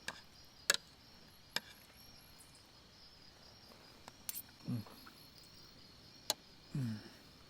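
A few sharp, separate clicks of cutlery against a dish, with two short low hums falling in pitch from someone eating, over a faint steady chirring of insects.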